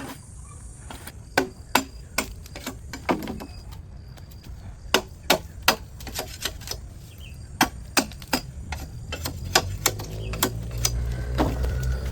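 Hammer blows: about a dozen sharp, irregular knocks, some in quick groups of two or three. A low rumble swells over the last few seconds.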